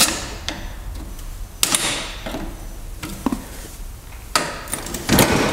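Metal clicks and scrapes as a small tool pries the E-clip off the top of a lawn tractor's front steering spindle: a handful of sharp clicks, the loudest cluster about a second and a half in, one with a short ring a little after three seconds.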